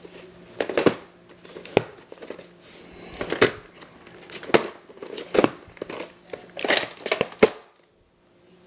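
Plastic being handled, crinkling with irregular sharp clicks and crackles, as a VHS tape case is handled; it goes quiet about a second before the end.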